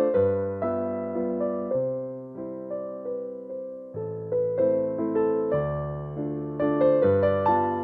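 Background music: a gentle electric piano playing a melody with bass notes, each note struck and then fading.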